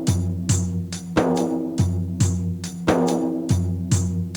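Background music: sustained low notes with a steady percussive beat, a strike roughly every half second or so.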